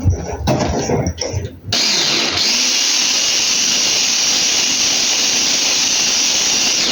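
Electric hand mixer switched on and running steadily, beating cake batter of eggs, sugar, milk and oil; it starts abruptly about two seconds in after some clattering.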